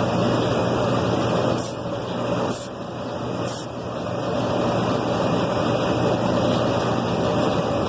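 HVAC equipment running with a loud, steady mechanical hum. It eases off slightly for a couple of seconds about a second and a half in, with three short hissy ticks.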